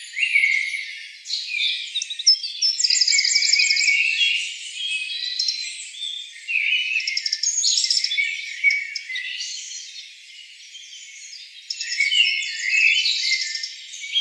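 Dense chorus of tropical forest birds, many overlapping chirps, whistled calls and fast trills, easing off briefly past the middle and building again near the end. The recording has no low sound at all, only the high calls.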